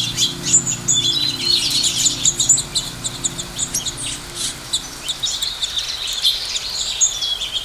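A dense chorus of many birds chirping, with short high calls overlapping one another throughout.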